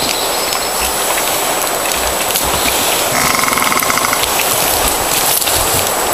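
Elk hooves giving soft low thuds on bare dirt under a steady loud hiss. About three seconds in comes a brief high, rapid trill lasting about a second.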